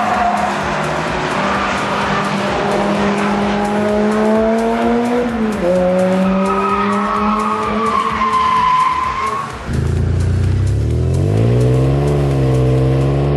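Car engine at full throttle on a race track, its pitch climbing, dropping at a gear change about five and a half seconds in, then climbing again. After a brief break, a stationary engine heard close at its exhaust tailpipe is revved up and eased back down once.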